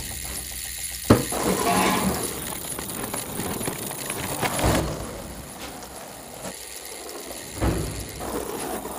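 Mechanical sound effects of cogwheels and chain: clicking and ratcheting, with three sharper knocks about a second in, midway and near the end.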